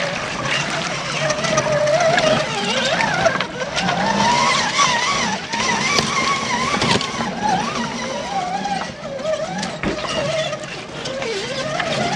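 Brushed electric motor and gearbox of an Axial SCX10 scale RC crawler whining, the pitch rising and falling with the throttle. The tires splash through shallow creek water and click over rocks.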